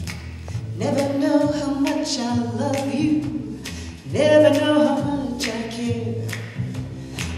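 A woman singing solo into a microphone in long held phrases, the first starting about a second in and a louder one about four seconds in, over a steady low accompaniment.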